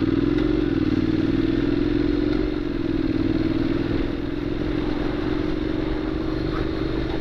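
Honda NC750X DCT's parallel-twin engine running at a steady pitch as the motorcycle rides along the road, the note wavering only slightly.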